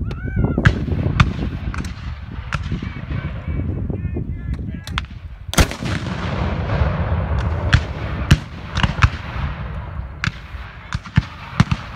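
A Civil War–era field cannon fires once about five and a half seconds in, the loudest boom. Scattered sharper shots from reenactors' guns crack before and after it.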